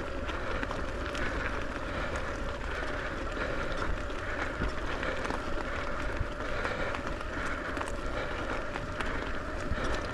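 Pivot Shuttle e-mountain bike riding along a dirt trail: a continuous rumble of tyres and wind, a steady whine, and scattered light clicks.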